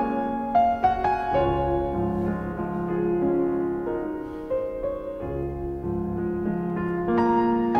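Background piano music: a melody of struck notes over low chords that change every second or two.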